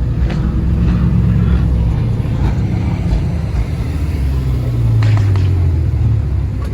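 Car engine running with a low exhaust rumble, growing louder and shifting in pitch about five seconds in.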